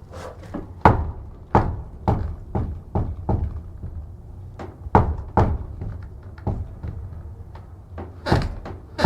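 Wooden church door worked back and forth, giving a run of knocks and creaks, about one or two a second, with the loudest knocks about a second in, midway and near the end.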